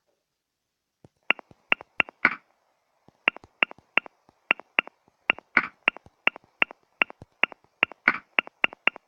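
Smartphone on-screen keyboard clicks as a text message is typed: a run of short, sharp key clicks, about two to three a second with brief pauses, and a broader, fuller click every few seconds among them.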